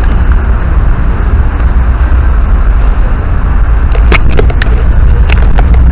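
Steady low rumble on the microphone, with a few sharp clicks about four to five seconds in.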